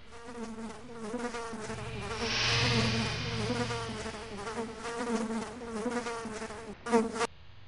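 A fly buzzing around, its pitch wavering as it moves. It swells and fades, comes loudest just before the end, and then cuts off suddenly.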